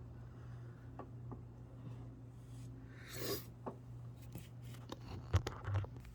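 Quiet room with a steady low hum. About halfway through there is one short breathy rush of air, and near the end a cluster of clicks and knocks, two with a dull low thud, like something being handled close to the microphone.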